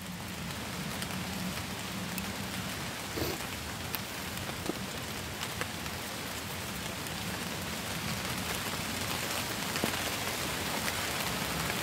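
Heavy rain falling steadily, an even hiss with a few sharp taps scattered through it.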